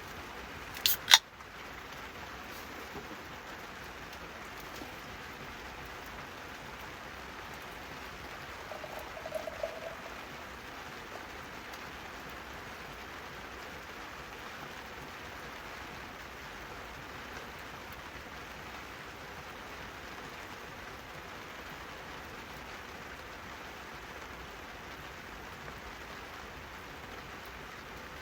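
Steady rain falling, an even hiss throughout. Two sharp clicks about a second in, and a short faint tone around nine seconds.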